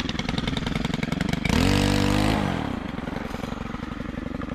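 Stihl brushcutter with a saw blade, its engine running low, then revved up for about a second about a second and a half in before it falls back to a lower speed.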